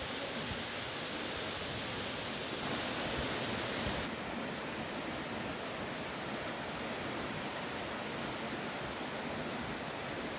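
Steady rush of many distant waterfalls falling down a cliff, an even hiss of falling water with no separate splashes.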